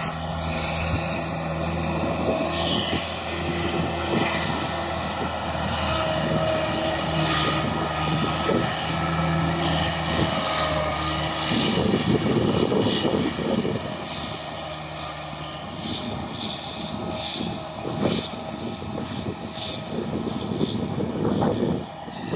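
New Holland TT75 diesel tractor engine running steadily under load while it pulls a tillage implement through a dry field. There is a steady engine drone, and it turns rougher and noisier from about halfway through.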